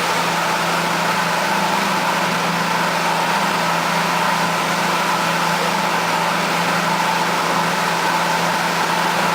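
Boat engine running steadily, a constant hum under an even rushing noise.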